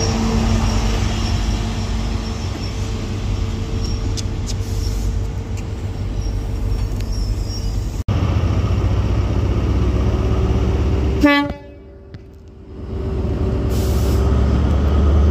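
Diesel engine of a Class 43 HST power car running steadily as the train moves along the platform. About eleven seconds in there is a brief horn toot, then a short lull, and then the engine hum of another power car grows as it approaches.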